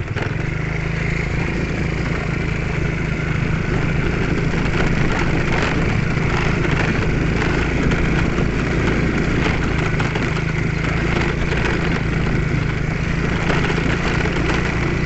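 Small motorcycle engine running steadily, a little louder in the first second.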